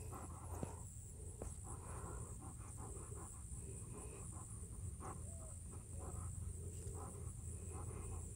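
Alaskan Malamute panting quietly in quick, short breaths, a few per second, over a steady high-pitched drone of insects.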